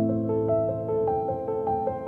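Background music: a keyboard melody of short stepping notes over held low notes, starting abruptly.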